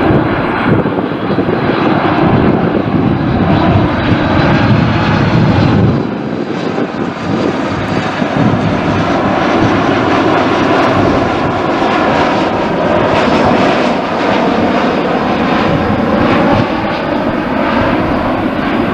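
Boeing 737 MAX 8's CFM LEAP-1B turbofan engines on landing approach as the jet passes low overhead: loud, steady engine noise, with a wavering, sweeping hiss in the middle of the pass.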